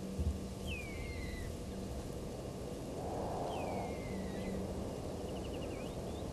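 An unidentified animal calling: two high whistled calls that slide downward, each under a second long and about three seconds apart, with a short quick trill between them.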